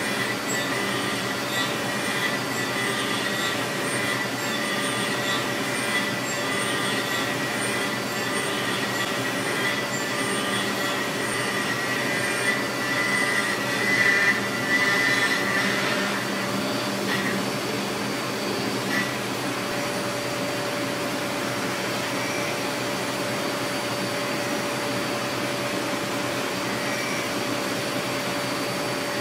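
Roughing ball end mill cutting a Ti-6Al-4V titanium blisk on a CNC mill-turn machine under flood coolant: a steady hiss and machine noise with a high steady whine. The whine grows louder around fourteen seconds in and drops away about sixteen seconds in.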